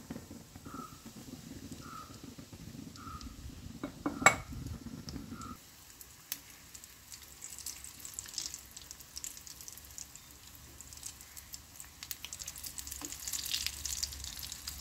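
Breaded sausage cutlets shallow-frying in coconut oil, the oil sizzling and crackling, with the crackle strongest near the end. A slotted spoon scrapes and turns them in the pan, and a single sharp knock about four seconds in is the loudest sound.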